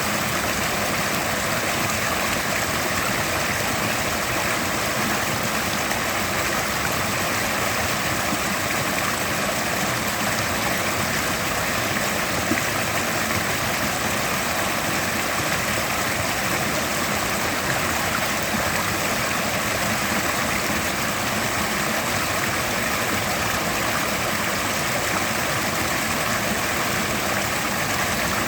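Mountain river rushing steadily over rocks, a constant even noise of flowing water.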